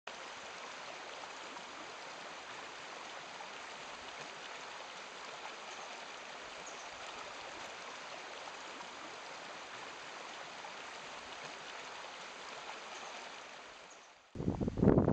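Small stream running over a shallow rocky bed, a steady rushing of water. Near the end the water sound dips and loud wind buffeting on the microphone cuts in.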